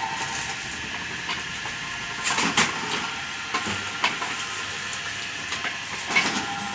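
Steady mechanical running noise with a faint held hum, broken by a few sharp metallic knocks, the loudest about two and a half seconds in and again near the end.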